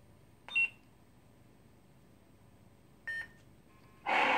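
Two short electronic beeps from a lightsaber's Nano Biscotte V4 soundboard, about two and a half seconds apart. Near the end the saber's sound starts loud and then fades, consistent with it powering back on out of mute into sound mode.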